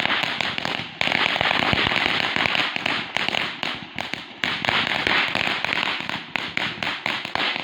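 Consumer firework crackling with dense, rapid pops, surging sharply about a second in and again a few seconds later, then thinning out and stopping as it burns out.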